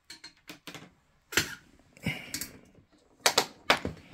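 A run of about ten light clicks and taps at an uneven pace, with a short rustle about two seconds in. The loudest clicks come a little over a second in and again near the end: handling noise from hands working on the opened TV.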